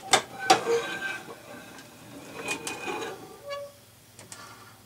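A few sharp clicks and knocks of handling, two close together at the start and more about two and a half seconds in, with a short squeak about three and a half seconds in.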